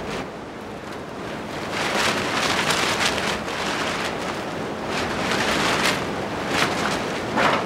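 Wind gusting, with loose plastic sheeting flapping in it and giving sharp rustles every second or two.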